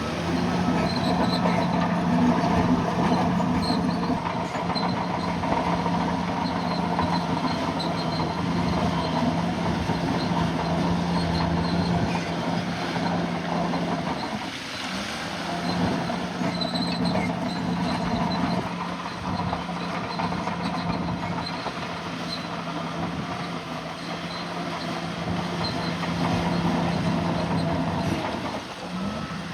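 Bulldozer's diesel engine running steadily under load, with steel tracks clattering and squealing. The steady engine note breaks off briefly about halfway through and again near the end.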